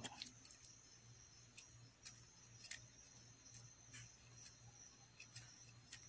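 Near silence: faint, irregular soft ticks of a fine crochet hook pulling thick thread through stitches, over a low steady hum.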